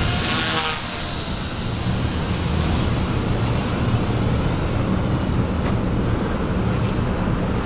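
Micro RC helicopter in flight: the high whine of its Extreme Spin 16,300 kV brushless motor and spinning rotor blades, holding steady with slight wavers in pitch as it manoeuvres.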